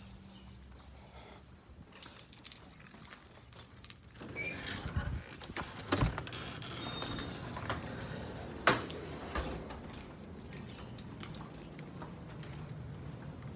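A door being opened and closed as someone steps into a house: a few sharp clicks and knocks, the loudest about six and nine seconds in, with rustling close to the microphone.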